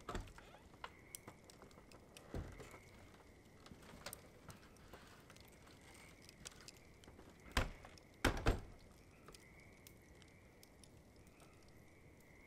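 Faint, steady high-pitched night chorus, with scattered sharp knocks and clicks; the loudest knocks come about seven and a half and eight seconds in.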